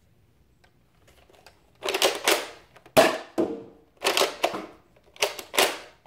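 Nerf Rival Kronos spring blaster being handled off-camera: four loud clattering bursts of priming slides and clacks about a second apart, beginning about two seconds in, with one sharp snap about three seconds in.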